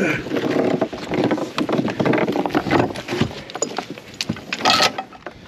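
Metal chain clanking and rattling as it is grabbed and handled off a magnet-fishing magnet: a fast, irregular run of metallic knocks, with a louder clank near the end.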